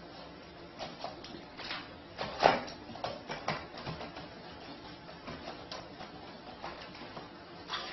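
Scattered light clicks and knocks, with one sharp knock about two and a half seconds in, as a dog works at a toilet with its paws. Right at the end, the toilet's flush begins with a rush of water.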